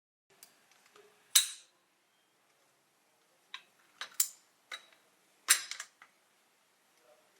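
Scattered sharp clicks and clinks of small hard objects being handled and set down, about eight in all. The loudest is a little over a second in, with a quick cluster around four and five and a half seconds in.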